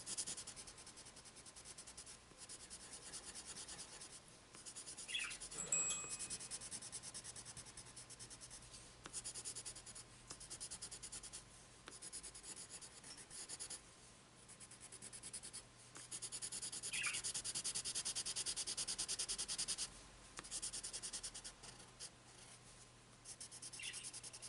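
Colorless blender pencil rubbing over layered colored pencil on paper in quick small strokes and circles, blending the colours together. A soft scratchy sound that comes in stretches of a few seconds with brief pauses between them.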